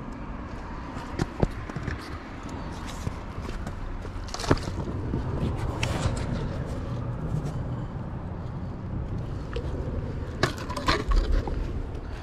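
Shoes and gear scuffing and scraping on granite rock, with a few sharp clicks and knocks, the loudest cluster near the end, over a steady low rumble.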